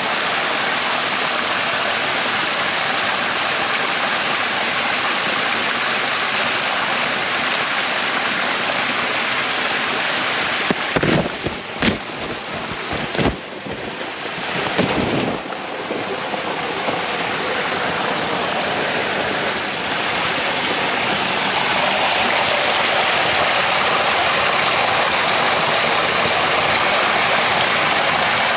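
Water running steadily over and beneath the ice of a partly frozen creek waterfall. A few knocks and low rumbles on the microphone come about halfway through.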